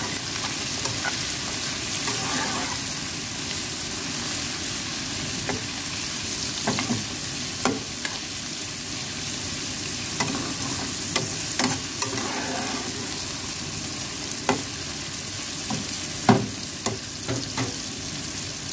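Chopped onion and broccoli sizzling in hot oil in a nonstick frying pan, stirred with a metal spoon. The spoon scrapes and knocks against the pan every second or two, with one sharper knock near the end.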